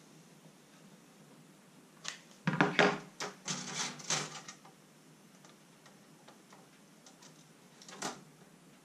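Hot glue gun set down and a plastic trim strip and metal mesh vent grilles handled on a wooden table: a cluster of knocks and clatters about two to four seconds in, then one more knock near the end.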